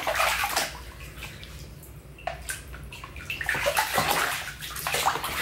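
Water splashing and sloshing in irregular bursts, busier near the end, as a child plays in water.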